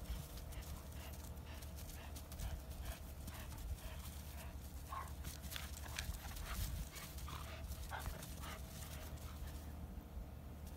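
A black puppy and a red Doberman playing tug-of-war with a rope toy: paws scuffling and rustling on dry grass with many short clicks, and a few brief growls in the middle.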